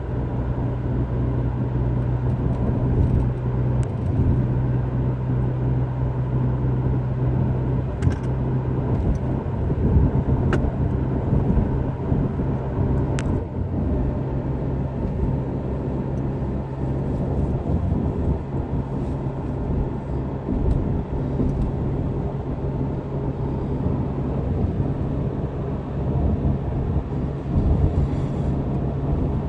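Steady engine and road noise inside a moving vehicle's cabin, a low even hum.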